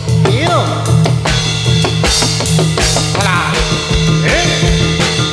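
Jathilan accompaniment music: drums struck in a steady beat over sustained low tones, with a few short gliding notes.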